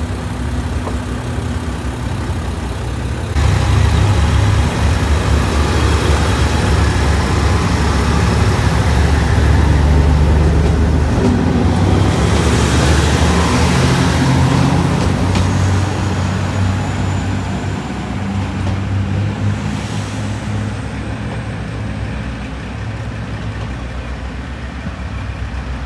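Diesel railcar engines running at a station platform. The engines get much louder about three seconds in, as for a train pulling away under power, stay loud for about ten seconds, then fade through the second half.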